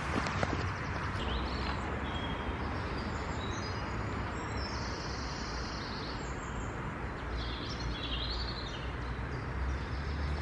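Steady rush of road traffic from a nearby dual carriageway, with birds chirping now and then over it. A couple of soft knocks right at the start.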